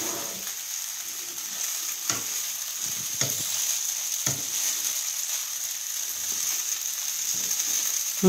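Fusilli pasta sizzling steadily in a frying pan as it is stirred with a slotted spatula, which knocks and scrapes against the pan a few times in the first half.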